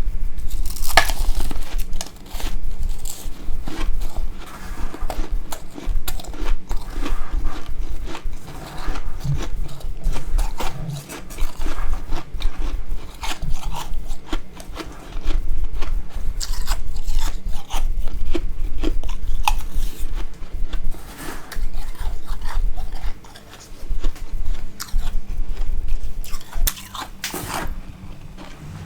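Freezer frost being bitten and chewed close to the microphone: an irregular run of crisp crunches over a low chewing rumble, with a few short pauses between bites.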